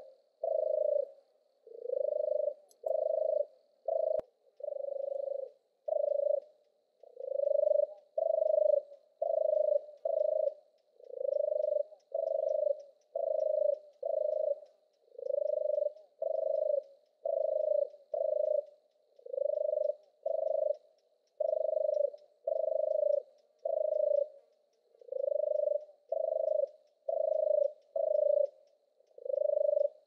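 European turtle dove singing its purring song: a long series of low, rolling purr notes, about one a second, in runs of two or three separated by short gaps.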